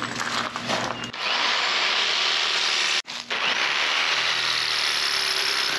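Electric jigsaw cutting through aluminum channel: a steady, high-pitched rasping buzz, broken by a short gap about three seconds in.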